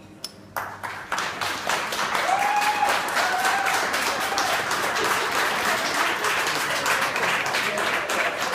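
Crowd applauding, breaking out suddenly about half a second in and going on steadily, with a few voices calling out over it.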